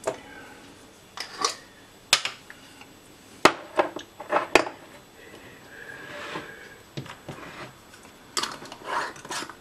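A stainless-steel jam funnel clinks and scrapes against the rim of a glass jar as the jar is filled, with about four sharp knocks in the first five seconds. Near the end comes a burst of scraping as a metal lid is put on the filled jar.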